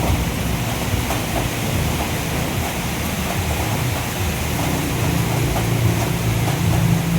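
Motorcycle engine running with an uneven low throb. The owner reports that it misfires, is hard to start and dies when left to idle.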